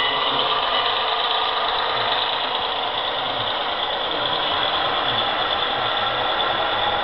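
Model Southern Pacific passenger train running past on its track: a steady mechanical clatter and whir from the wheels on the rails and the locomotives' motors and gearing.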